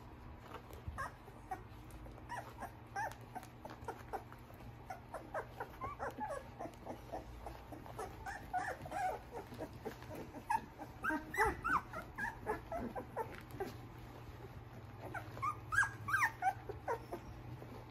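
A litter of Australian Shepherd puppies crying with many short, high squeaks and whimpers, thickest around the middle and again near the end.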